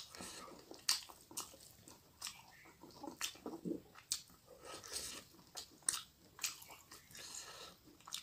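Close-up eating sounds: chewing with wet mouth smacks and irregular sharp clicks, mixed with the soft squish of fingers working rice into fish curry on the plate.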